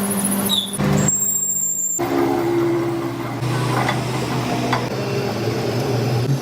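Workshop machinery running with a steady hum, the sound changing abruptly about a second in and again two seconds in.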